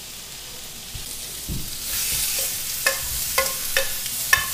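Sunchokes sizzling in hot olive oil in a skillet, the sizzle growing louder about two seconds in, after a dull knock. In the second half, metal tongs clink sharply against the pan about four times as the sunchokes are moved out onto a plate.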